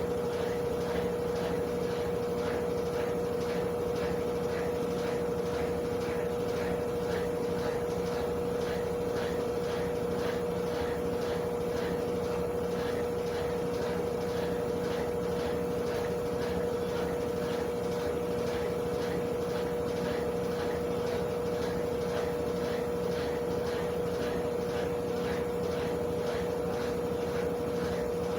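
Consul top-loading washing machine running steadily: a constant motor hum with a faint regular swish about two or three times a second.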